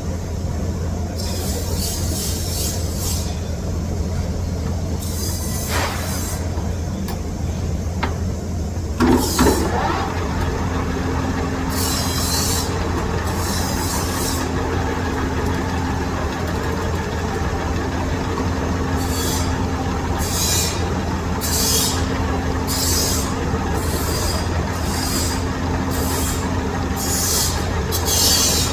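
Metal lathe running with a steady low hum. About nine seconds in there is a sharp screech that drops in pitch; after it a low tone comes and goes every second or two with bursts of hiss, as the tool cuts hardened steel.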